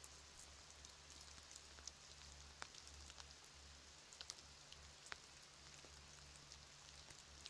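Light rain falling on a pond: a faint steady hiss with scattered sharp drop ticks.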